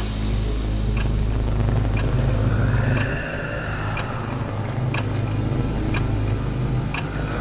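Dark horror sound design: a heavy, low rumbling drone with sharp clock-like ticks about once a second, and a faint tone that rises and falls around the middle.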